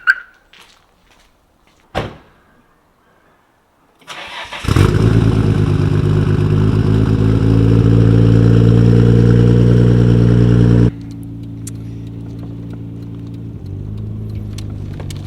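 Nissan Skyline R32 GT-R's twin-turbo straight-six (RB26DETT) cranked by the starter and catching about four seconds in, then idling loudly and steadily. Around eleven seconds in the sound suddenly drops to a quieter steady idle. A single click comes about two seconds in.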